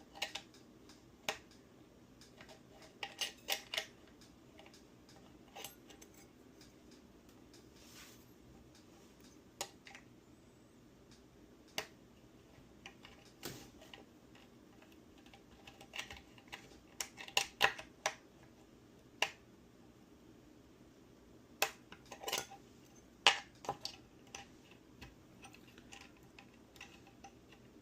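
Scattered light clicks and taps of small tools and metal guitar hardware being handled while parts are tightened down, coming in small clusters with quiet gaps between.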